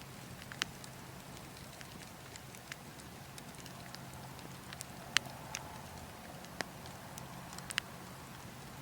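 Logs burning in a wood fire, crackling with a handful of sharp, scattered pops, the loudest a little past halfway, over a steady rush of wind.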